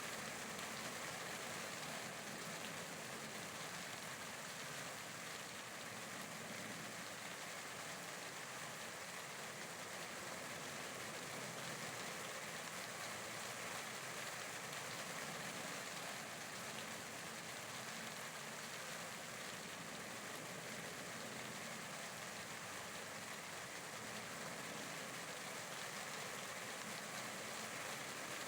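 Steady rainfall, a continuous even hiss of rain with no distinct drops or gusts standing out.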